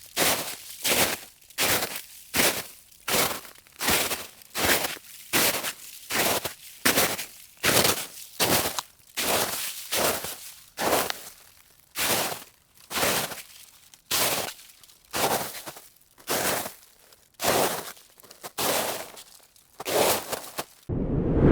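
Footsteps crunching through snow at a steady walking pace, about one and a half steps a second. They stop shortly before the end, where a different sound starts.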